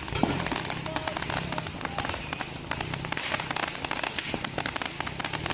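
Fireworks going off in a dense, rapid run of crackles and pops that continues throughout.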